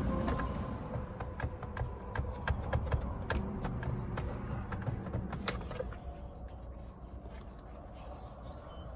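Irregular sharp clicks and snaps of plastic and metal as a Toyota steering wheel's airbag module is worked loose from its clips, over a low rumble. The clicks stop a little past halfway.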